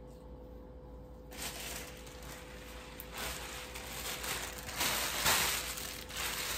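Clear plastic shower cap crinkling and rustling as it is pulled over wet, mask-coated hair, starting about a second in and loudest near the end.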